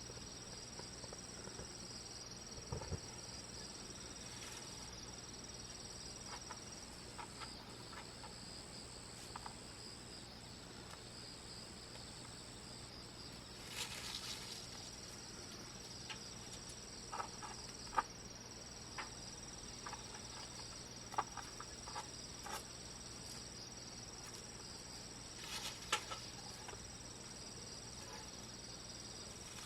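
Crickets singing steadily and high-pitched, with a few sharp crackles and pops from a wood campfire scattered through, the loudest snaps coming about halfway and two-thirds of the way in.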